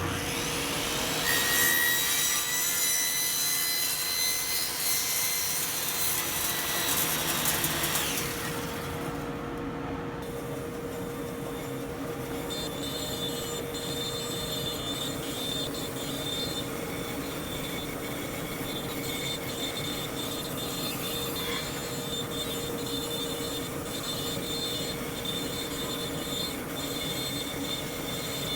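A power tool cutting wood: a loud whining cut for the first eight seconds or so, then a quieter steady machine noise with a constant hum.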